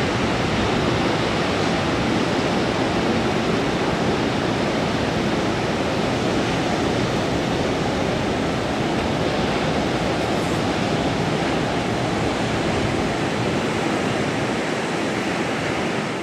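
Ocean surf and wind making a steady, even rushing sound that never lets up.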